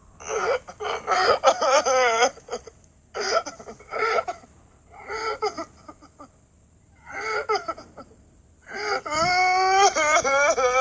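A cartoon character's voice crying in wavering, sobbing wails. It comes in about five bursts with short pauses between them, and the last wail is long and loud.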